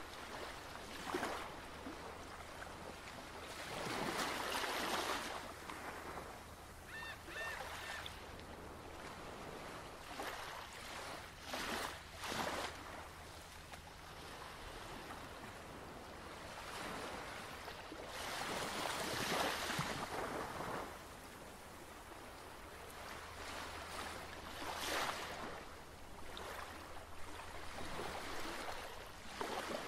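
Ocean surf washing on the shore, rising and falling in swells every several seconds.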